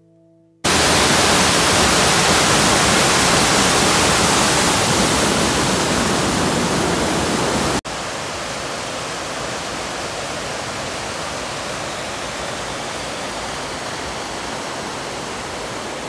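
Rushing water of a small waterfall cascading over rocks on a mountain creek, a steady loud rush that starts suddenly. About eight seconds in it cuts to a quieter, equally steady rush of water.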